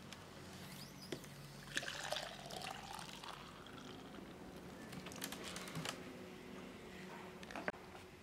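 Palm wine poured from a plastic jerrycan into a small cup, splashing softly, with a rising pitch as the cup fills. There are several light clicks and knocks from the plastic can being handled.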